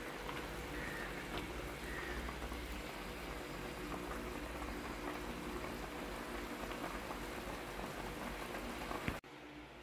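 Sardine fish curry boiling in a shallow pan: a steady bubbling with many small pops. It cuts off suddenly about nine seconds in.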